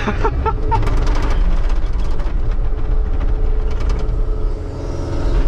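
John Deere 333E skid steer's diesel engine running hard under load, heard from inside the cab, with a steady hydraulic whine over the low engine rumble as the grapple carries a heavy tree trunk. A few sharp creaks and clanks come in the first second or so.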